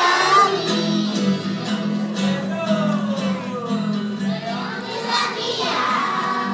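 A class of young children singing together over musical accompaniment, many voices sliding up and down in pitch above a steady low note.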